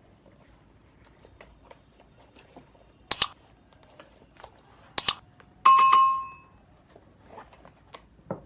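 Two sharp double clicks, then a single bright bell-like ding that rings out for just under a second, amid faint rustling and handling noises.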